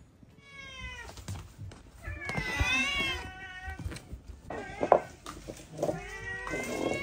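Domestic cats meowing for their breakfast: a string of four or five drawn-out meows, some sliding down in pitch.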